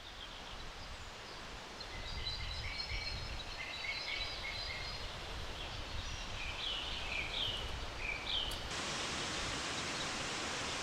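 Steady rushing of falling water from a waterfall, with small birds chirping over it. About three-quarters of the way through, the rushing suddenly becomes fuller and brighter.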